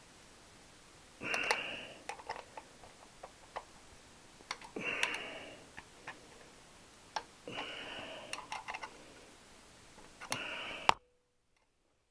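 Hand-tool work on a motorcycle engine: sharp metal clicks and taps, with four short scraping rasps a few seconds apart, as a gasketed engine cover is worked free. The sound cuts off suddenly near the end.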